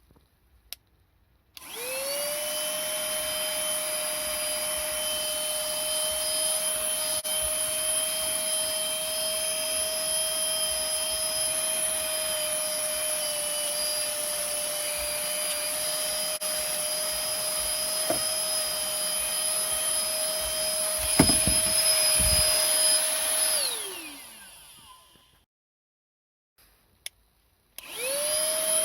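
Rechargeable handheld vacuum cleaner switched on: its motor spins up quickly and runs with a steady high whine. A couple of knocks come near the end of the run, then it is switched off and the whine falls away as the motor winds down. After a short quiet it is switched on again and spins up once more.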